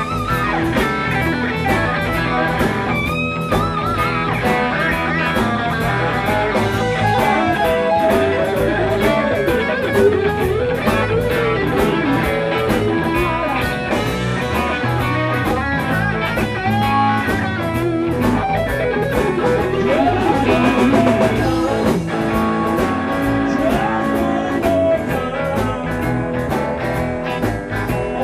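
Live blues-rock band playing an instrumental passage: an electric guitar plays a lead with bending notes over electric guitars, bass and a steady drum-kit beat.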